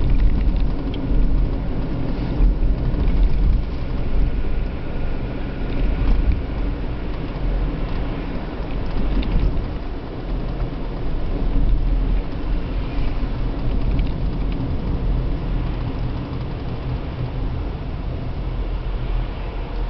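Steady low rumble of a car's engine and tyres on the road, heard from inside the cabin; it eases a little toward the end as the car slows in queuing traffic.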